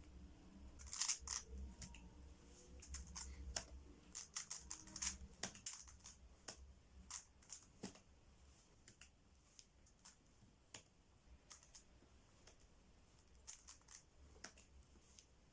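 Faint, irregular clicking and rattling of a speedcube's plastic layers being turned by hand, in quick clusters during the first several seconds and then more sparsely.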